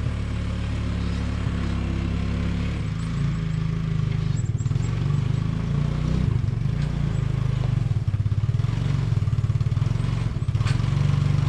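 An engine running steadily, a low drone.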